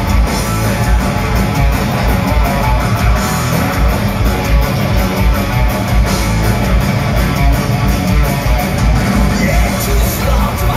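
Thrash metal band playing live at full volume: distorted electric guitars over rapid, pounding kick drums.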